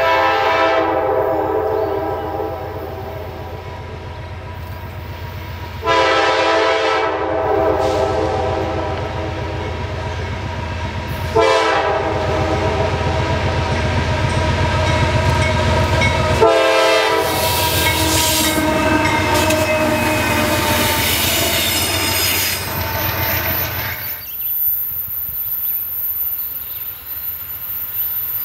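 CSX GE diesel freight locomotive climbing the grade and passing close by, blowing its air horn in several blasts, one of them short, over a steady low engine rumble; wheel and rail noise builds as it goes by. The sound drops off suddenly about 24 seconds in, leaving quieter train sound from farther off.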